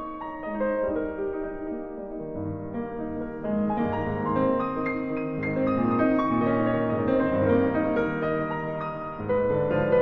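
Background piano music with held notes; low bass notes come in about two seconds in.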